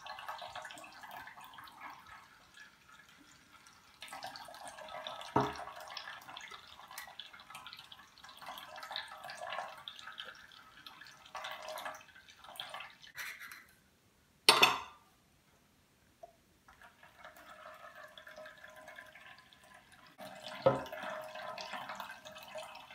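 A spoon scraping and pressing blended parsley, apple and ginger pulp through a small metal sieve, the juice dripping into a stainless-steel bowl. A few metal-on-metal knocks come through it, the loudest about midway.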